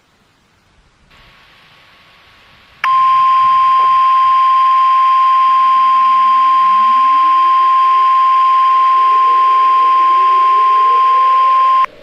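Weather-radio warning alarm tone: one loud, steady, single-pitched tone that starts about three seconds in, holds for about nine seconds and cuts off abruptly. It sounds over a background hiss that begins about a second in.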